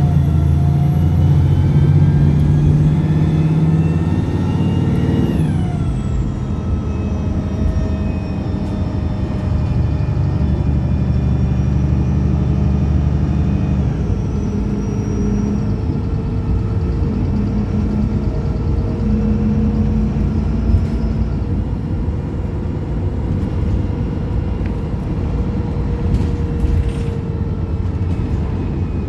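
Optare Pulsar single-decker bus engine under way: the revs climb for the first few seconds, fall away sharply about five seconds in, then settle into steadier running as the bus drives on.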